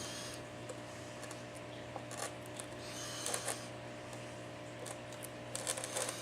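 Light scrapes and small clicks of a pry tool working on an iPad 4's glass digitizer and frame, a few scattered strokes with a cluster near the end, over a steady background hum.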